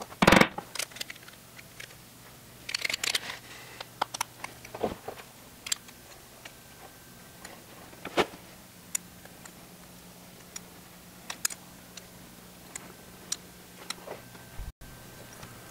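Scattered clicks and knocks of small metal door-handle parts being handled, fitted together and set down on a carpeted workbench, with one louder knock just after the start.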